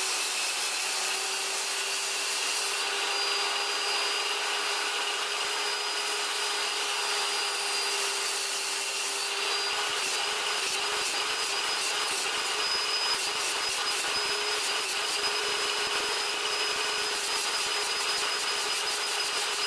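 DeWalt table saw running with a steady motor whine as a mahogany piece is cut against a stop block; about halfway through a rougher, lower rumble joins in.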